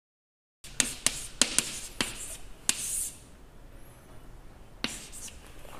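Chalk on a blackboard: after a moment of dead silence, a quick run of sharp taps and a short scratchy scrape in the first few seconds, then faint room noise with one more tap near the end.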